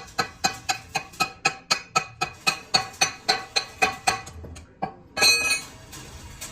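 A hammer striking steel in quick, even blows, about four ringing strikes a second, then a pause and one louder ringing clang.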